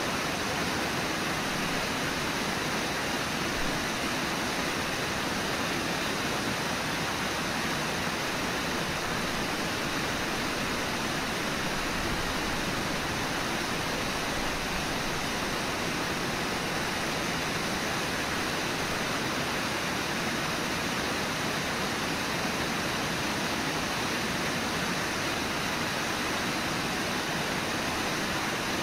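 Whitewater of the Brooks River at Brooks Falls, rushing steadily and without a break.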